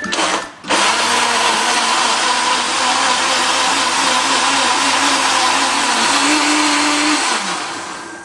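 Electric blender switched on about a second in, running steadily as it blends strawberries and pineapple pieces with sugar and a little water. Near the end its motor winds down and stops.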